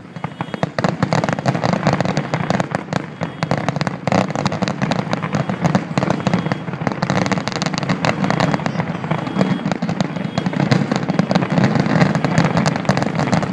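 Fireworks finale: a dense, rapid barrage of aerial shell bursts, bang after bang with crackle between them and no break.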